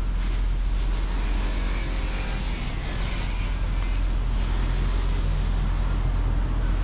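Road traffic: cars and trucks passing, a steady rumble and tyre noise.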